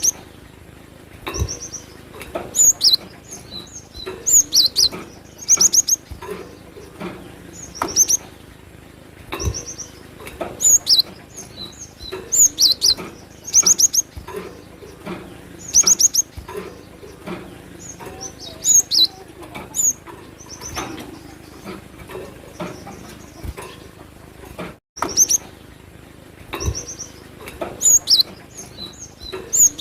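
Cinereous tit (glatik batu) singing: short clusters of rapid, high-pitched chirping notes repeated every second or two, with a few faint low knocks in between.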